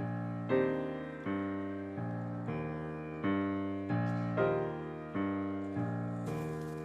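Piano music: a chord struck about every three quarters of a second, each ringing and fading before the next.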